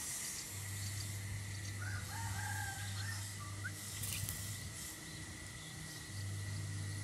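A rooster crows once, faintly, about two seconds in, over a steady high whine and low hum. A short chirp and a brief flutter of wings follow from the caged bulbul chicks.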